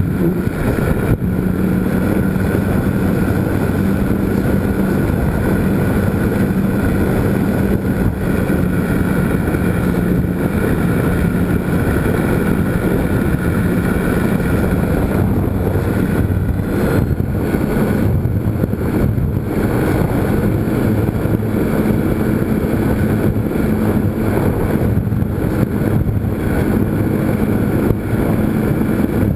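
GWS Slow Stick R/C airplane's electric motor and propeller droning steadily, heard from the camera on board, with wind rushing over the microphone. The motor's pitch wavers about halfway through and then settles slightly higher.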